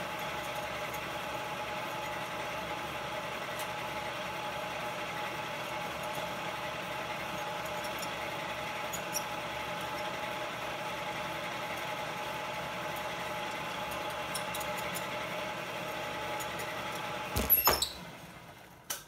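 Electric pottery wheel motor running with a steady whine while a clay cylinder wall is pulled up with wet hands. Near the end comes a short louder noise, and the whine then dies away.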